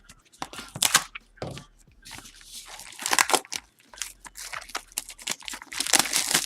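A retail box of trading cards being torn open by hand: irregular tearing and crinkling of packaging, heaviest about three seconds in and again near the end.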